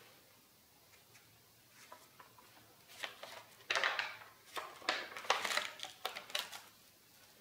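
A page of a spiral-bound sketchbook turned by hand: after a quiet start, stiff ink-covered paper rustles in a quick run of sharp swishes for about three seconds, loudest near the middle.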